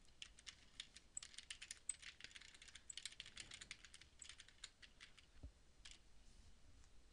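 Faint typing on a computer keyboard: a quick run of keystrokes that stops about four and a half seconds in, then one more click a second or so later.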